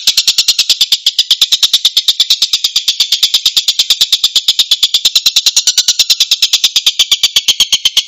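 Tengkek bird calling in a rapid, harsh, tightly packed run of short sharp notes, about nine a second, steady throughout.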